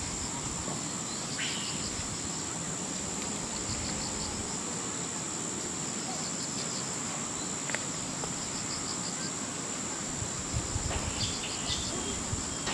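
Crickets chirping: a steady high-pitched trill with repeated short trains of fast chirps.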